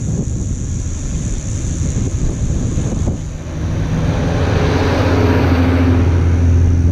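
Wind buffeting the microphone, then a Toyota Land Cruiser four-wheel drive coming up a soft sand track. Its engine runs at a steady pitch and grows louder from about halfway as the vehicle nears and passes close by, loudest near the end.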